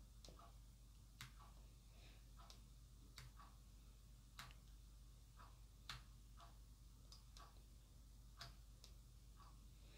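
Near silence with faint, irregularly spaced small clicks: the Nikon D5300's buttons and command dial being pressed and turned while its settings are worked through.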